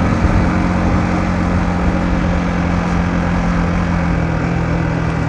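Yamaha MT-15's 155 cc single-cylinder engine running steadily while the motorcycle is ridden at an even speed, with a constant rush of wind and road noise.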